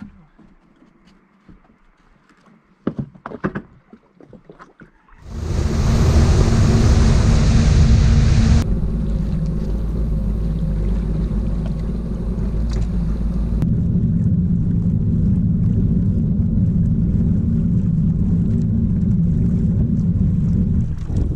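A few knocks on the boat and dock, then about five seconds in a personal watercraft engine starts running with a loud, steady rumble and wind noise on the microphone. The hiss eases partway through while the low engine rumble carries on.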